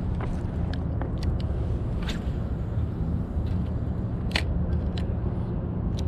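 Steady low rumble of distant city traffic, with a few short light clicks as a spinning reel is handled and reeled.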